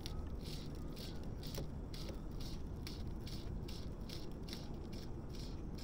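Fly line being stripped in by hand through the rod guides in quick, even pulls, each pull a short rasping zip, about two to three a second: a fast stripping retrieve of the fly.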